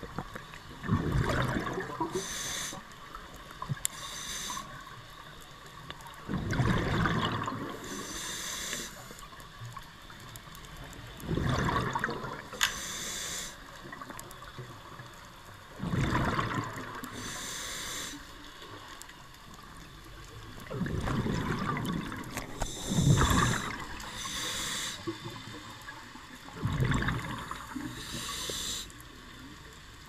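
Scuba diver breathing through a regulator underwater: a hiss on each inhalation and a bubbly burst of exhaust on each exhalation, about one breath every five seconds.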